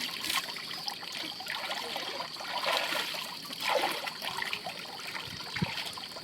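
Water splashing and trickling in shallow water, in uneven bursts, loudest a little past the middle.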